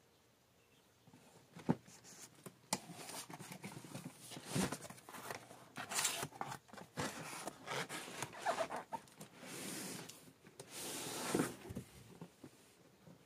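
Cardboard being handled: a couple of knocks, then rustling, rubbing and scraping as a cardboard shipping box is opened and a shoebox is slid out of it, with two longer scrapes near the end.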